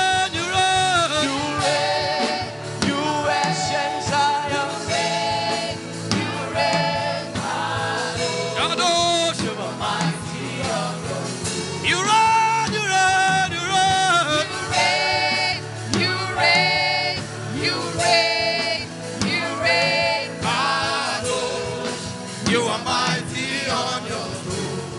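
Gospel worship singing over instrumental accompaniment: sustained, wavering sung notes that continue without a break.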